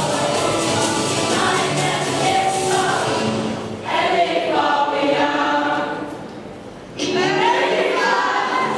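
A mixed group of teenage students singing together as a choir. The sound drops away briefly about six seconds in, then the full group comes back in for the closing phrase.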